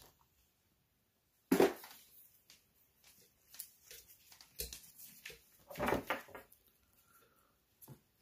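Handling noise from gloved hands working with a multimeter, its test probes and a battery cell on a table: a sharp knock about a second and a half in, then scattered taps and rustles, with a louder burst of handling around six seconds and a last click near the end.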